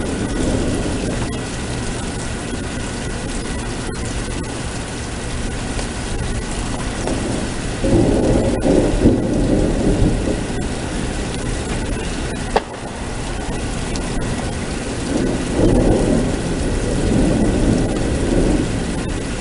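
Thunderstorm: steady rain with rolling thunder, two long rumbles about 8 and 16 seconds in.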